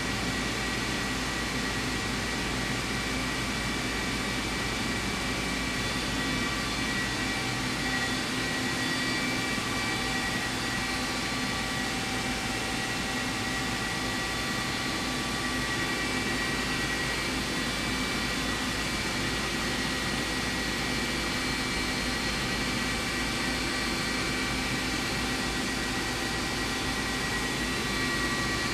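Hwacheon CUTEX 240 SMC CNC lathe powered up and idling: a steady machine hum with a few constant whining tones, unchanging throughout.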